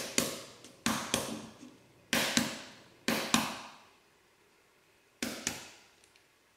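A hard-boiled egg's shell being cracked by rapping it on a stone countertop: a series of sharp taps, mostly in pairs, each ringing out briefly, with a last pair about five seconds in.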